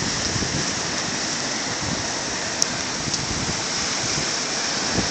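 Heavy rain pouring steadily onto a paved parking lot during a thunderstorm.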